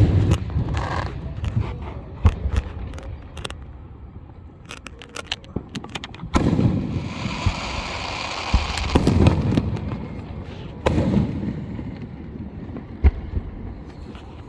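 Fireworks going off: several deep booms a few seconds apart, a few sharp single cracks, and runs of rapid crackling with a hissing spell in the middle.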